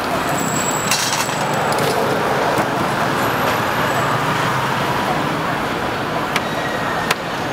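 Steady street traffic noise, with a few sharp clicks or taps scattered through it.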